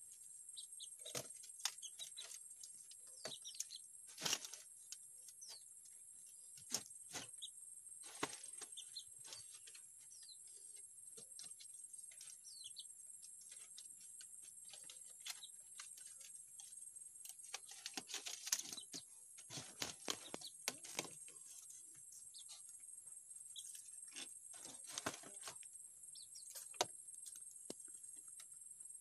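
Palm-frond strips crackling and rustling in irregular snaps as they are bent, woven and tied into a nest basket, with faint bird chirps and a steady high-pitched hiss behind.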